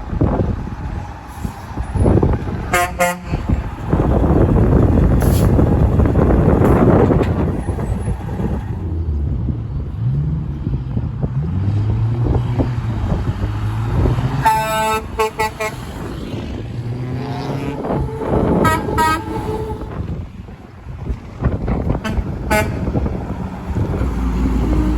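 Semi trucks passing on a highway, with the loudest rush a few seconds in. A truck's diesel engine climbs in pitch as it pulls away, and short air-horn toots sound several times, the longest about a third of the way past the middle.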